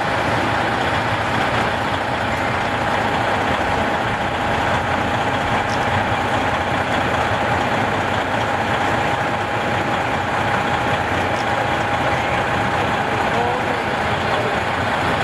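Freightliner Classic semi truck's diesel engine idling steadily, with a constant whine over the rumble.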